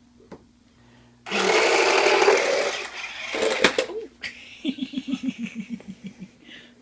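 Toy remote control car's small electric motor running in bursts: a loud whir for about two seconds, a few clicks, then a quick stuttering run of short pulses near the end as the controls are worked on and off.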